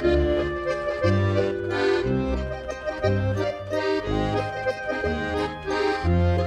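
Instrumental background music: held chords over a bass line that steps about twice a second.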